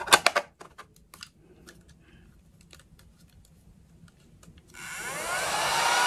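Plastic clicks and knocks as the mini desktop vacuum's battery-powered body is handled, then near the end its small motor switches on and spins up, a rising whine settling into a steady whir.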